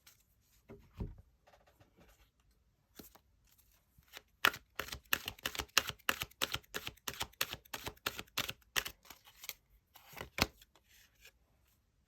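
Tarot cards being shuffled and handled: a quick run of sharp card clicks and snaps lasting about five seconds, then two more near the end, after a few soft taps at the start.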